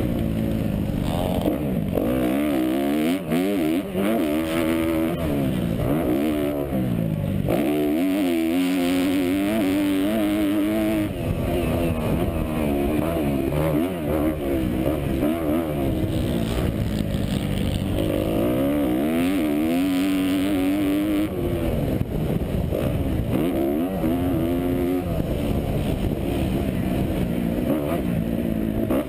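2012 Kawasaki KX250F's single-cylinder four-stroke engine revving hard under racing load, its pitch climbing and falling again and again as the throttle is worked and the gears are shifted, with several sharp drops in revs.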